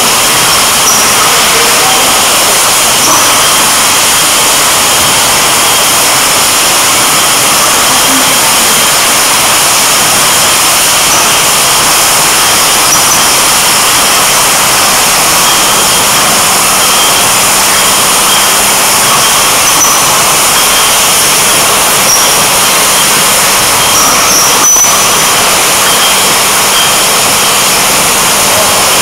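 PALI PEPA 30/30/8 rinser-filler-capper triblock running at 5000 bottles an hour, filling beer into glass bottles: a loud, steady machine noise with hiss, and short high ticks now and then.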